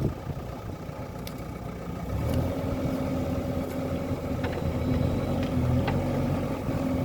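Diesel engine of a JCB 3DX backhoe loader running, getting louder about two seconds in as it takes on load and settles into a steady hum, with a few light clicks.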